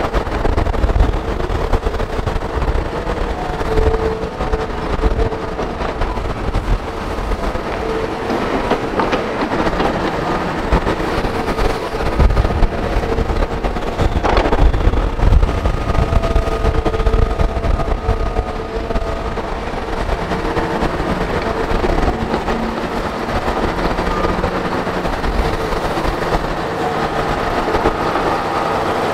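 Hitachi hydraulic excavator working under load: a steady diesel rumble with a hydraulic whine over it as the bucket digs through soil. A single sharp knock comes about halfway through.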